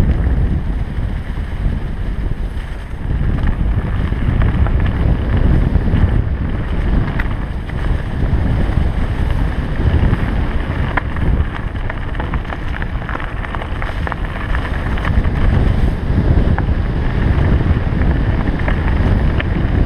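Heavy wind rush and buffeting on a helmet-mounted GoPro Hero 3 Black's microphone as a Specialized Enduro mountain bike descends fast, over the rumble of tyres rolling through dry leaves and dirt. Occasional sharp clicks cut through the rush.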